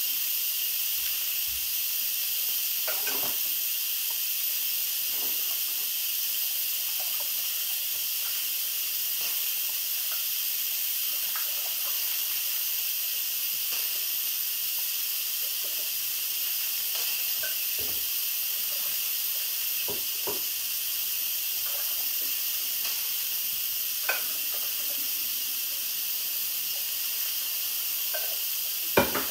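Electric pressure cooker venting steam through its release valve in a steady, loud hiss: a quick pressure release, with the float pin not yet dropped. A few light clinks and knocks of dishes come now and then, with a sharper knock near the end.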